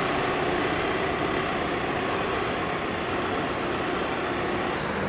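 Steady noise of street traffic, a vehicle engine running close by, with no single distinct event.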